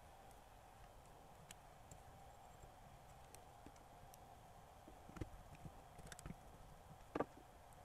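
Near silence with a faint steady hum, broken by scattered small clicks and taps of fingers handling the Panasonic RS-270US cassette deck's transport while a new rubber drive belt is fitted around its motor pulley and flywheel. The taps come more often in the second half, with the sharpest click near the end.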